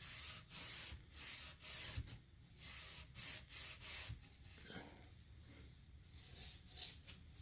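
Alcohol prep pad wiping a cabinet door's surface in quick back-and-forth strokes, about two a second, turning fainter and more irregular after about four seconds. The door is being cleaned before a lock's adhesive is stuck on.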